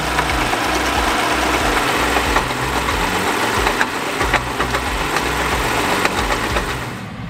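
Small homemade jaw crusher driven by a small gasoline engine, running steadily while it breaks concrete blocks. The engine hum mixes with a steady grinding and scattered sharp cracks of stone breaking between the jaws.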